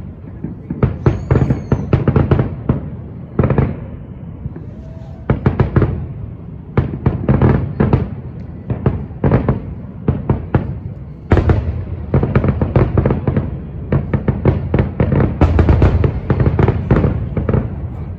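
Aerial firework shells bursting in a public display: sharp bangs and crackling in quick volleys over a low, echoing rumble. The bursts come thickest over the last several seconds.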